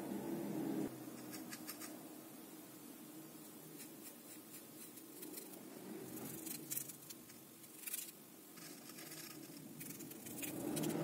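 A stiff paintbrush dabbing and scrubbing black acrylic paint onto a rough, rock-textured cliff piece: faint scratchy taps and scrapes, with a few louder clusters midway. A steady low hum cuts off about a second in.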